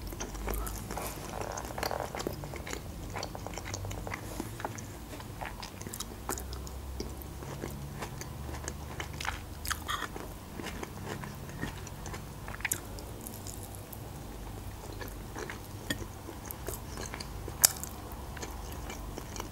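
Close-miked chewing and small mouth sounds of a person eating chopped cutlets, with scattered soft clicks and one sharper click near the end.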